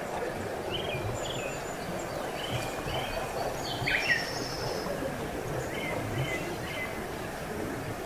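Steady rushing of a waterfall, with birds chirping on and off over it.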